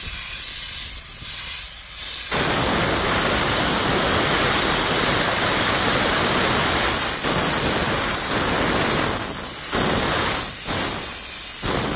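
Soda-blasting nozzle spraying compressed air and soda media at soft red brick, a steady full rushing hiss. At first only a high hiss; the full blast opens about two seconds in and is cut off briefly a few times near the end.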